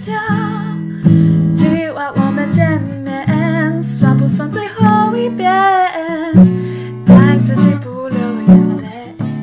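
Background song: strummed acoustic guitar chords under a singing voice.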